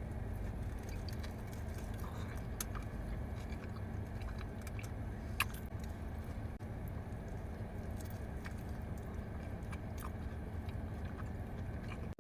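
A person chewing a mouthful of Chipotle burrito, with scattered small mouth clicks, over a steady low rumble.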